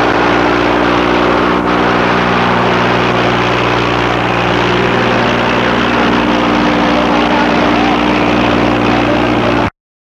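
Massey Ferguson 241 tractor's three-cylinder diesel engine running steadily at a constant pitch under heavy load, pulling a fully loaded 11-tine cultivator in first high gear. The sound cuts off suddenly near the end.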